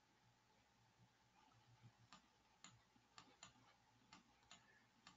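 Near silence with a scattering of faint, irregular clicks at the computer, mostly in the second half.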